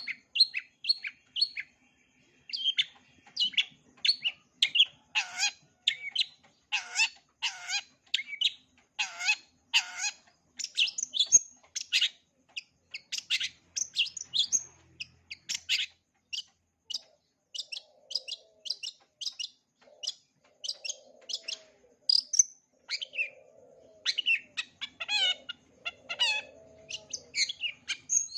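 Long-tailed shrike singing its varied, mimicry-filled song: a continuous run of short, sharp chirps and whistled notes, several a second, with a few lower chattering notes in the second half.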